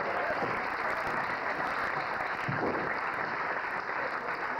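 Small crowd clapping and shouting: a steady din of applause mixed with voices.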